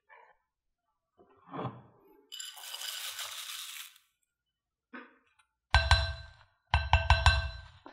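Rolled oats poured into a ceramic bowl of mashed sweet potato, with a rustling patter, then a spoon tapped rapidly against the bowl in two quick runs, each tap leaving the bowl ringing briefly; the taps are the loudest part.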